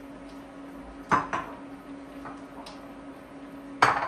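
Cookware clacking against a cooking pot as vegetables go in: two sharp knocks about a second in and a third near the end, over a steady low hum.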